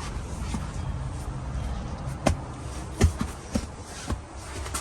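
A Tesla Model 3/Y rear seat cushion being pressed down onto its mounts: four short knocks and thuds from about two seconds in, roughly half a second apart, over a low steady hum.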